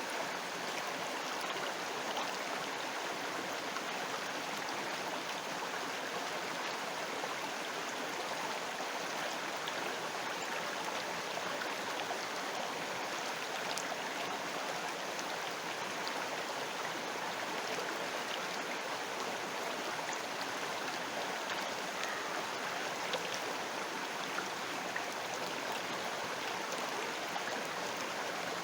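River water flowing steadily, an even rushing sound with no break.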